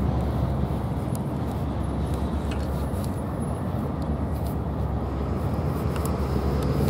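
Tank cars of a slow-moving freight train rolling along the track: a steady low rumble with a few faint clicks.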